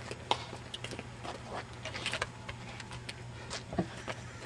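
Hollow plastic wiffle ball bat striking the ball: one sharp crack about a third of a second in. Scattered faint taps and scuffs follow over a steady low hum.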